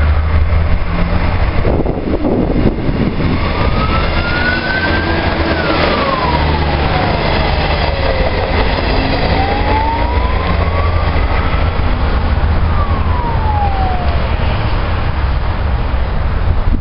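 Renfe Media Distancia train passing close at speed: a steady, loud rumble of wheels on rails. Over it a tone glides up and then down in pitch, twice.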